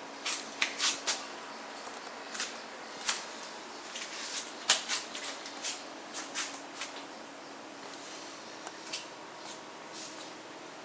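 Homemade CNC plotter, its salvaged printer and scanner stepper motors driving it, working in irregular clicks and short scratchy strokes over a faint steady hum. The clicks come thickly for the first several seconds, then thin out.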